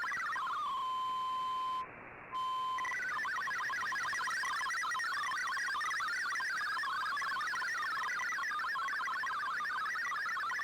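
MFSK digital data signal from a shortwave broadcast heard through the receiver's audio: a fast warble of many short tones hopping between about 1 and 2 kHz. Near 1 s in it settles into one steady tone, breaks off briefly around 2 s in, and then the hopping data tones start again about 3 s in.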